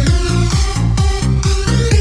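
Electronic dance music from a DJ remix, instrumental, with a steady kick-drum beat and heavy bass.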